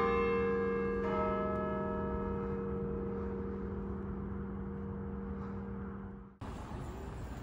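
Bells of the Cathedral of Saint Paul ringing: one bell strikes right at the start and a different-pitched bell about a second in, their tones humming on and dying away slowly. About six seconds in the sound cuts abruptly to steady street noise.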